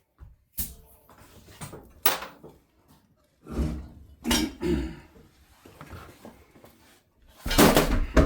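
Metal hand tools and parts clanking and clattering, a string of sharp knocks with short pauses between, the loudest cluster near the end.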